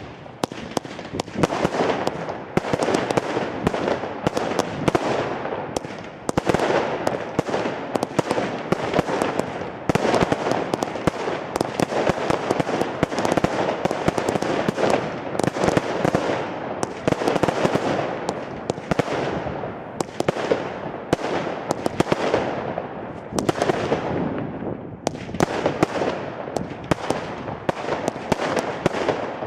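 Consumer firework batteries (cakes) firing shot after shot in a dense, continuous barrage of bangs and crackling bursts, with a short lull near the end.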